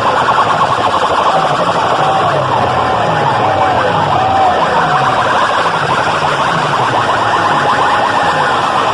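Loud sound-system playback of a DJ competition track: a wavering, siren-like wail over falling bass sweeps that repeat about every 0.7 seconds.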